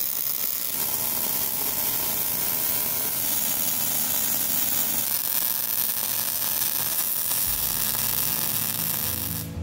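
MIG welding arc laying ER70S-6 mild steel wire onto a steel shaft as a weld build-up, giving a steady hiss that stops abruptly near the end as the arc is broken.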